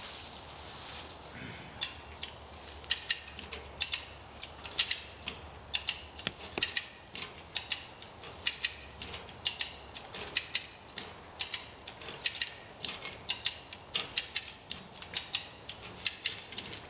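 Hand-cranked cable winch ratcheting as its handle is worked: a quick cluster of sharp pawl clicks about once a second. The winch is drawing a chain tight on an oak to lever its remaining roots up out of the ground.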